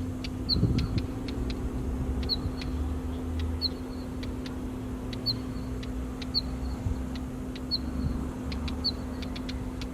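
Northern wheatear calling repeatedly: a short high whistle about every second or so, mixed with sharp clicking notes. Under it runs a low traffic rumble with a steady hum.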